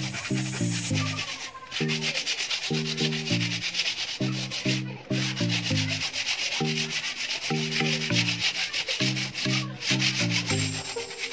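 Sandpaper rubbed by hand over a painted wooden plank in quick back-and-forth strokes, with a few brief pauses: the first coat of paint is being sanded before the next coat. Background music plays underneath.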